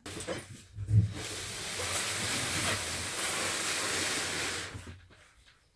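Large cardboard bike box being moved: a thump about a second in, then a steady scraping hiss for about three and a half seconds.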